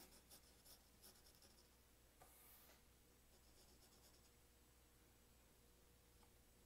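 Faint pencil lead scratching on drawing paper: a run of short strokes over the first few seconds, then lighter, quieter strokes.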